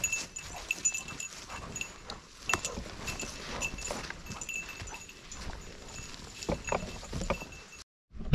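A dog's collar jingling in short, irregular rings as the dogs run, over crackling of twigs and brush underfoot.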